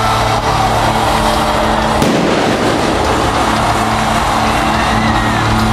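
Heavy metal band playing loud at the close of a live set, heard from the crowd: a held distorted chord, broken about two seconds in by a sudden loud rush of noise that then washes on under the music.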